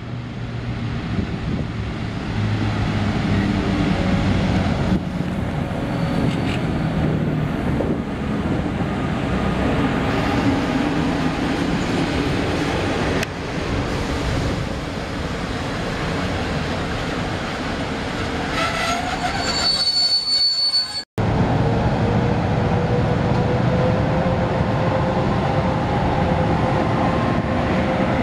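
PKP Intercity EP09 electric locomotive hauling a TLK train of passenger coaches along the platform, with steady rolling noise and a brief wheel squeal about two-thirds through. After an abrupt cut, the train moves off, with a steady tone slowly rising in pitch.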